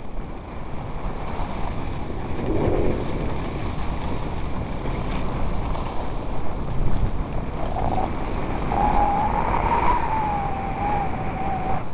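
Wind rushing over the microphone of a camera carried by a skier heading down a groomed piste, a steady low rumble. From about nine seconds in, a wavering whistle-like tone rises and dips above it for a few seconds.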